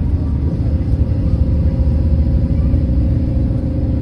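Steady low rumble of a moving coach bus, engine and tyres heard from inside the cabin, with a faint steady whine above it.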